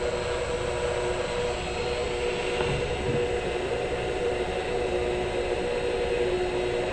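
Mill-drill running slowly on a variable frequency drive, its power feed lowering the end mill on its own: a steady machine hum with a few held tones over it.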